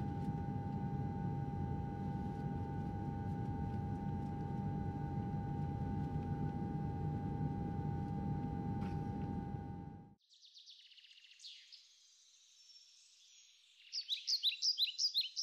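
Steady low rumble of airliner cabin noise with a constant hum tone, cutting off abruptly about ten seconds in. After it come high bird chirps and twitters, with a quick run of loud chirps near the end.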